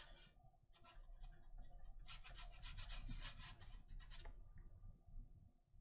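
Faint scratching of a watercolor brush on paper, in quick short strokes about six a second. There are two runs with a brief pause between them, and the strokes stop a little after four seconds in.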